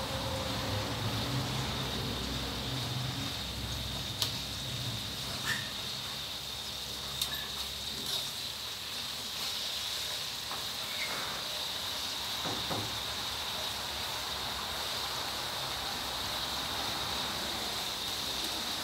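Sun-dried beef and pandan leaves deep-frying in hot oil in a steel wok, with a steady sizzle. A metal spatula clicks against the wok now and then, and a low rumble fades out in the first few seconds.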